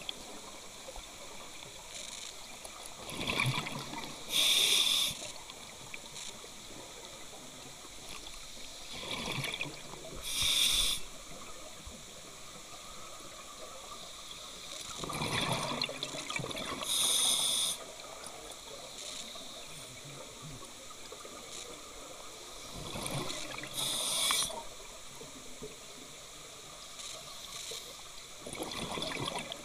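Scuba diver breathing through a regulator underwater: each breath is a rumble of exhaled bubbles followed by a short hiss as the demand valve delivers air, repeating about every six to seven seconds, five breaths in all.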